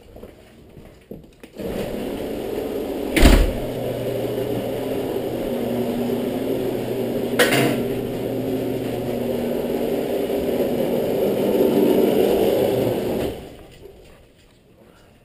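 Electric garage door opener running as the door rolls up, a steady motor hum and rattle that starts a second or two in and cuts off suddenly about thirteen seconds in. A loud thump comes about three seconds in, and a sharper knock midway.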